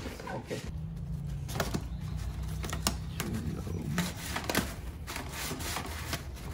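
Irregular clicks and knocks of a dryer vent hose and its metal end fitting being handled and pushed together, over a low steady hum that starts about a second in.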